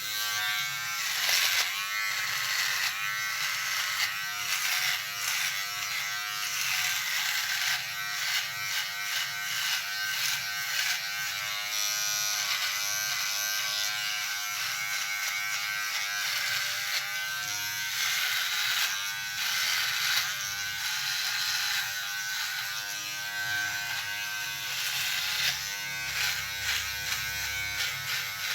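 Electric shaver buzzing during a shave, its pitch and level wavering continually as the head is worked over the skin.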